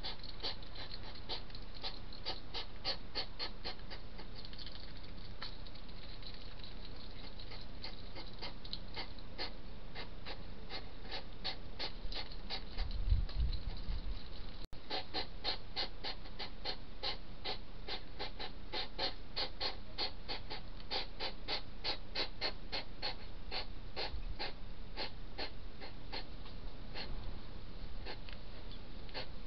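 Hedgehogs chewing food from a dish: a fast, steady run of wet clicking and smacking, several chews a second. A brief low rumble of wind on the microphone about halfway through.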